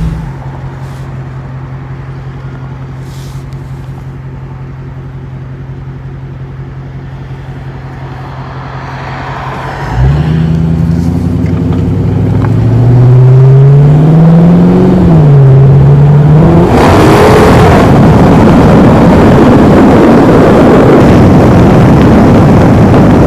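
Dodge Charger Pursuit's 5.7 Hemi V8 exhaust through Classic Muffler Power Sticks with no resonators: a steady low drone at low revs, then about ten seconds in a hard acceleration with a rising note that dips once at a gear shift and climbs again. From about seventeen seconds a loud rush of wind on the microphone at speed joins the exhaust to the end.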